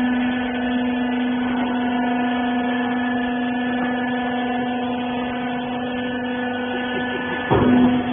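Hydraulic rag compression baler's motor and pump running with a steady hum. Near the end there is a brief louder rush of noise.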